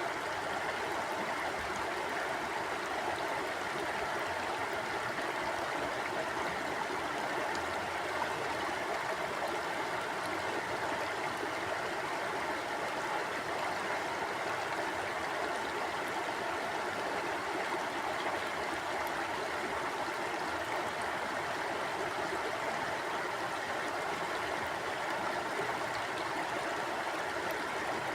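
Mountain stream flowing over rocks: a steady, even rush of water with no change.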